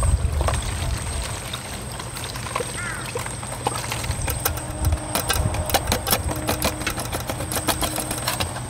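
Leftover cooking wastewater being poured through a homemade PET-bottle funnel, whose holed bottle caps strain out food scraps, into a plastic water bottle. From about halfway through there is a rapid run of splashing, gurgling clicks. A couple of short chirps come earlier.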